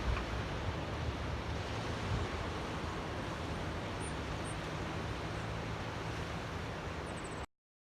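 Small waves lapping in a tidal channel, a steady wash of water. It cuts off abruptly about seven and a half seconds in.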